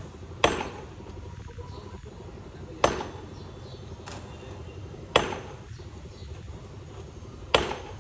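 Four sharp hand-tool strikes, evenly spaced about two and a half seconds apart, each ringing briefly: repeated hammering on the wall under construction.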